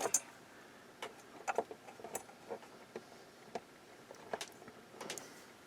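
Irregular light clicks and taps of metal multimeter probe tips touching transistor leads and heatsink hardware inside an amplifier, a sharper double click at the start and about eight more scattered through.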